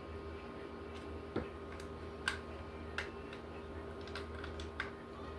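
Scattered sharp clicks and clinks of a Stevens 320 pump-action shotgun's parts being handled and pulled apart during disassembly, about seven irregularly spaced, over a steady low hum.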